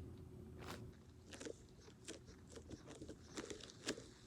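Faint, irregular crunching and crackling of a soft, slime-like fidget toy material being kneaded and shaped in the hands.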